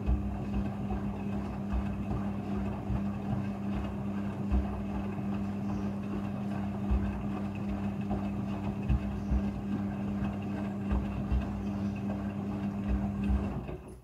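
Front-loading washing machine tumbling a wet blanket during the rinse: the drum motor hums steadily, with water sloshing and irregular soft thuds as the load drops. The motor stops shortly before the end.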